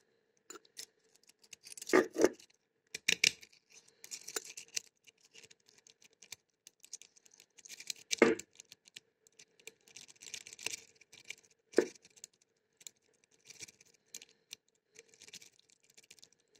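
Metal jiggler key clicking, scraping and rattling as it is worked in and out of a single-sided mailbox wafer lock. The scratchy bursts come irregularly, and the loudest are about 2, 8 and 12 seconds in.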